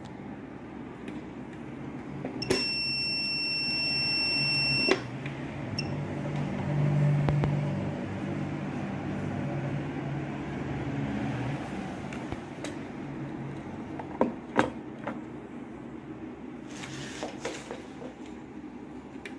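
A handheld radiation monitor gives one steady high-pitched electronic beep, about two and a half seconds long, starting a couple of seconds in, then a short blip. Under it runs a low steady hum, with a few sharp handling clicks later on.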